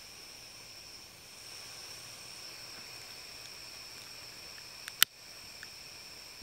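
Steady high hiss of gas escaping from a canister camp stove's burner, its valve just opened, then one sharp click about five seconds in from a utility lighter's igniter held at the burner.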